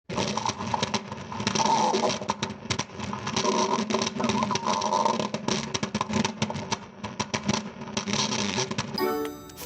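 A long stomach growl that rises and falls unevenly, full of small crackles. Cartoon music with chiming tones starts near the end.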